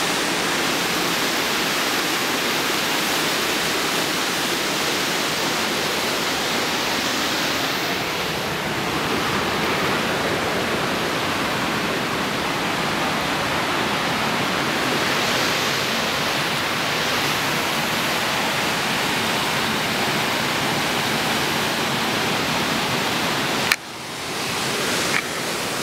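Steady loud rushing of a fast mountain river's white water. Near the end a sharp click comes as the rushing suddenly drops, then returns.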